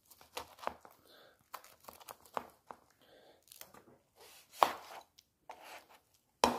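Chef's knife slicing through a cooked chicken breast on a cutting board: a string of irregular short cuts and knocks of the blade on the board. The loudest strokes come about four and a half seconds in and near the end.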